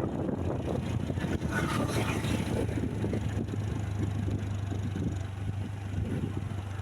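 Heavy vehicle engine running with a steady low drone, with wind buffeting the microphone.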